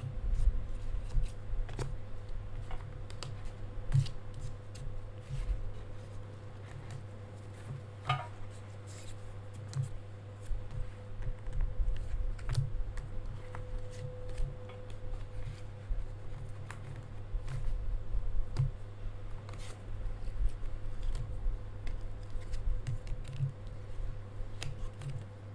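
Hands pulling and spreading cards from a deck of illustrated cards on a tabletop: scattered soft clicks, taps and sliding scrapes, over a steady low hum.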